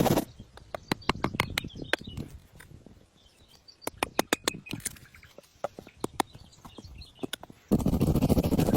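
Birds chirping faintly, with many sharp irregular clicks and knocks. A loud rough rushing or scraping noise cuts off just after the start and comes back a little before the end.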